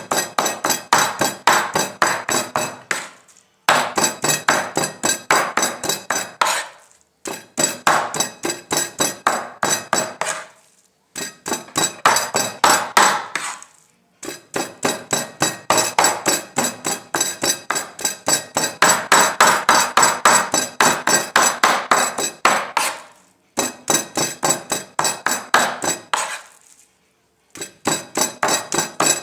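A knife or cleaver chopping rapidly on a cutting board, about five strokes a second, in runs of a few seconds broken by short pauses.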